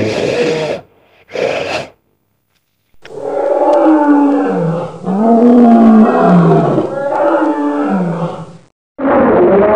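Custom giganotosaurus roar sound effect layered from animal and creature roars: two short roars in the first two seconds, then one long roar of about six seconds whose pitch falls and rises several times, and another short roar near the end.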